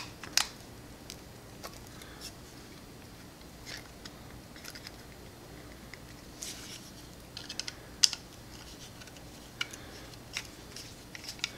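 Sparse small clicks and taps of plastic and metal as a stowaway tool is fitted into the gap at the back of a tactical toothbrush and its screw is worked, with a faint steady hum underneath.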